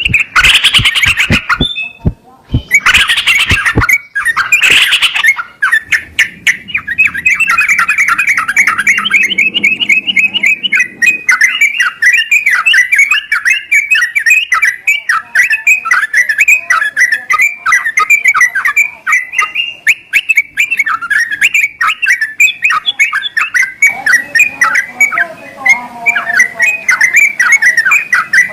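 Yellow-vented bulbul (trucukan) song: a few loud phrases with short breaks, then a continuous fast chatter of rapidly repeated notes.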